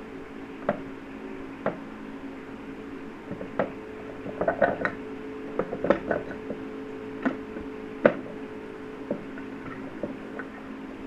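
A Java macaque handling a small wooden box and picking through seeds on a stovetop, making irregular wooden clicks and knocks. They are busiest in the middle, with one sharper knock about eight seconds in, over a steady low hum.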